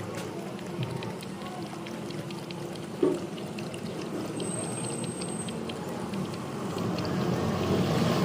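Puppy lapping water: a run of small, irregular wet clicks over a low background hum, with one louder knock about three seconds in.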